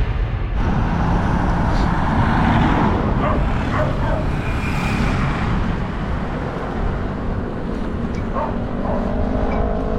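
Road traffic passing, with a steady low rumble.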